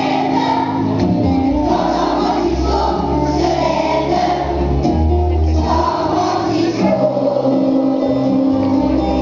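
A large children's choir singing in unison, with low held accompaniment notes beneath the voices.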